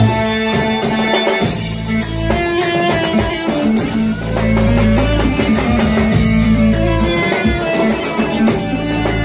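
A live band plays an instrumental passage with no singing. A lead melody with sliding, bent notes runs over a steady bass and a drum beat.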